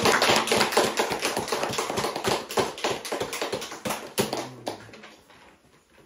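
Applause from a small group of people, dense claps at first, then thinning out and dying away about five seconds in.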